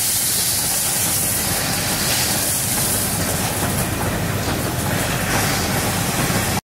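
Automated minifigure assembly-line machinery running: a steady hiss with a low hum underneath.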